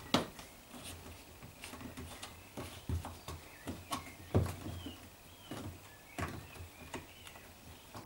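Rubber door seal being pressed and worked back onto the drum-opening lip of a Samsung washing machine by hand: irregular soft knocks, taps and rubbing, with a few louder thumps as the seal and drum front are pushed.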